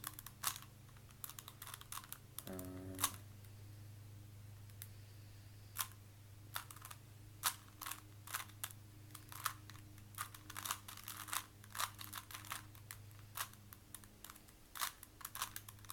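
Rubik's Cube being turned fast by hand: quick runs of sharp plastic clicks and clacks as the layers snap round, broken by short pauses.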